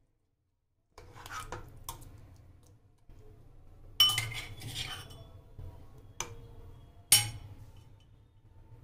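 Metal utensils clinking and knocking against an aluminium pressure cooker: a handful of separate sharp strikes with a short ring, the two loudest about four and seven seconds in.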